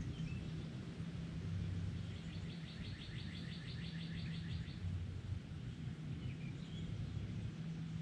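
A songbird sings a rapid, even trill of about fifteen notes lasting two and a half seconds, with a few short chirps near the start and near the end, over a steady low hum.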